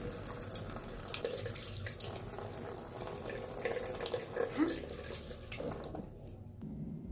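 Tap water running into a sink, splashing as a face is rinsed with the hands. It stops about six seconds in.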